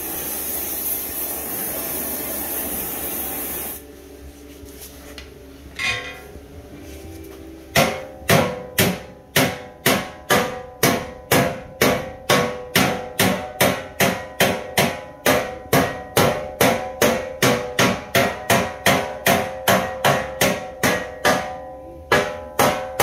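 Oxy-fuel torch hissing as it heats the steel skid plate, cutting off about four seconds in; a single clank follows. Then a hammer strikes the red-hot corner of the Jeep LJ factory transmission skid plate about twice a second, each blow ringing, bending the heated steel into shape, with a short pause near the end.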